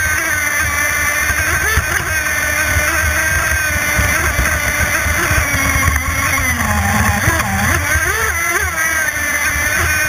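Radio-controlled offshore race boat at speed, heard from onboard: its CMB91RS nitro methanol engine runs at high revs with a high whine whose pitch keeps wavering up and down, over a rushing of water and wind.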